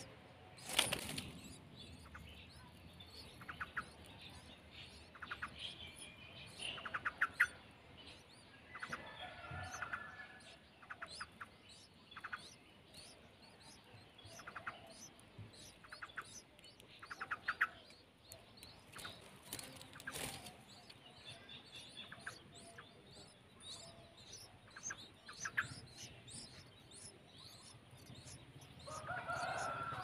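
Bulbul nestlings begging at the nest: short trains of rapid, high cheeps every second or two, with wing flutters and rustling as the parent bird comes to the nest to feed them. A louder burst of begging comes near the end.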